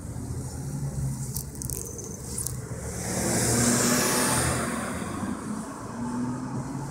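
A car driving past, its tyre and engine noise swelling to a peak about halfway through and then fading away.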